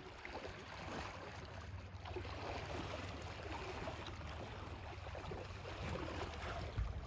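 Faint river water lapping and trickling around a kayak, under a steady low rumble.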